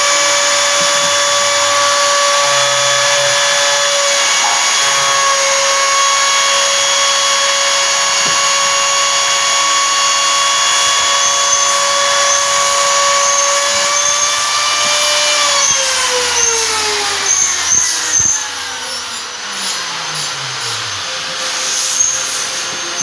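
CNC router spindle motor running with a steady high whine. About two-thirds of the way in it is switched off, and its pitch falls smoothly as it winds down.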